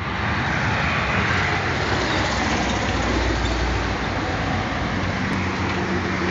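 Steady noise of motor traffic driving past on a multi-lane highway, with no single vehicle standing out.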